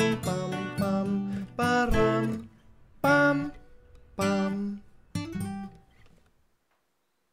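Acoustic guitar strummed steadily, then three single chords struck about a second apart and each left to ring and fade: the closing chords of the song.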